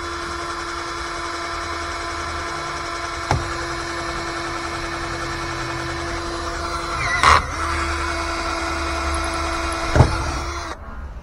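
Black+Decker cordless drill running with a steady whine as it bores a hole in a boat's console. About seven seconds in there is a brief loud knock as the drill falters. It then runs on and stops shortly before the end.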